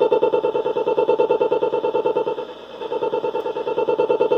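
A Bose RF remote's transmitted signal heard as interference through an AM radio's speaker: a rapid pulsing buzz while the remote's button is held down, dipping briefly about two and a half seconds in as the remote is moved. It is the sign that the remote is sending out a signal.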